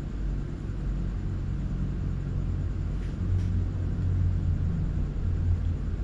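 A low, steady rumble that grows a little stronger about halfway through.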